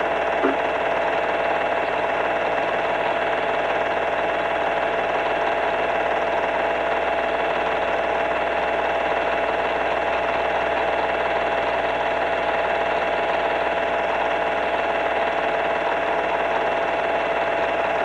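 Film projector running steadily, its motor and mechanism making a constant whirring hum.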